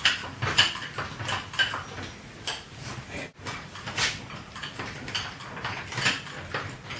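A run of irregular light metallic clinks and knocks as a jack is set under the transmission of an engine hanging from a crane.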